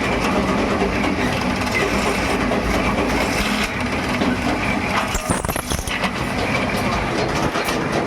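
Workshop machinery running steadily with a dense, constant noise and scattered metallic clicks and rattles, typical of metal wire-rack production.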